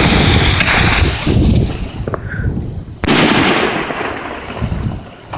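Aerial fireworks exploding overhead. One sharp bang comes about three seconds in, and its sound fades away slowly.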